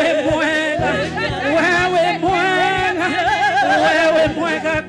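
Live gospel praise singing: women's lead and harmony voices with wide vibrato over a backing band with a drum kit and a steady bass line.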